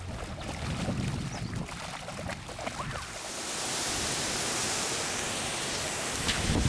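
Quiet running water, then about three seconds in a steady hiss of rain sets in as the storm arrives.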